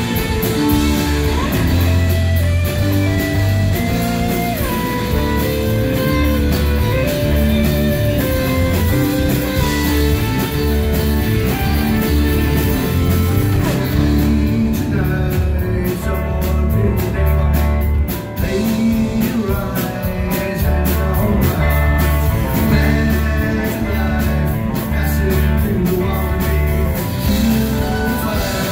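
Rock band playing live: electric guitar, electric bass and drum kit, with a steady beat and cymbals throughout.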